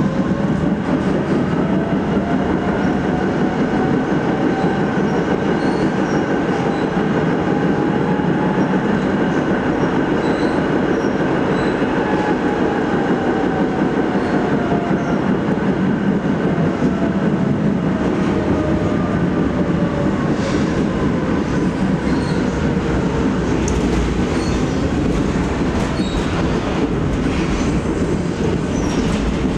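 ČKD Tatra KT8D5R.N2 articulated tram running, heard from inside the passenger compartment: a steady rolling rumble with a motor whine that rises in pitch over the first several seconds and falls again through the middle. A few knocks of the wheels over the rails come near the end.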